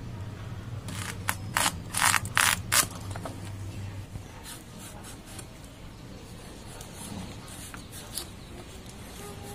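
Gourd being cut and peeled on a boti, the fixed curved kitchen blade: a quick run of about six sharp, crisp cuts about a second in, then softer scraping of the blade through the rind and flesh.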